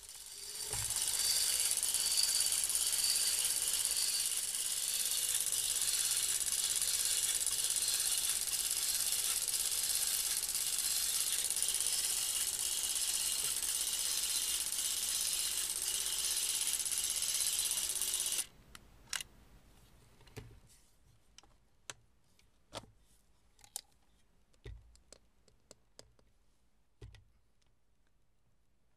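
Movie camera's mechanism running with the film chamber open, a loud steady whir that cuts off suddenly after about eighteen seconds. Then a scattering of small clicks and taps from handling the camera and its side cover.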